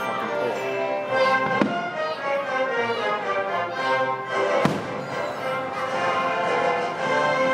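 Symphony orchestra playing sustained string and wind music, cut by firework bangs: a sharp one a little over a second in and a louder burst report about four and a half seconds in.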